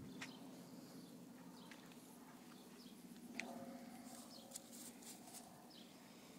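Near silence: a faint steady low hum with a few faint, short bird chirps.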